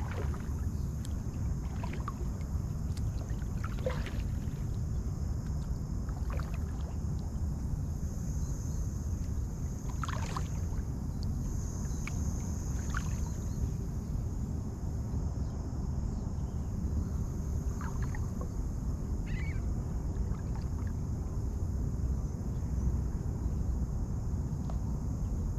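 Kayak on shallow water: a steady low rumble of wind and water, with scattered small drips, splashes and ticks, two of them clearer about ten and thirteen seconds in.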